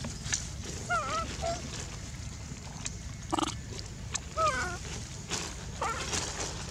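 Young macaques giving several short squeaky calls, each rising and then falling in pitch, with a brief harsher call about three and a half seconds in, over a low steady rumble.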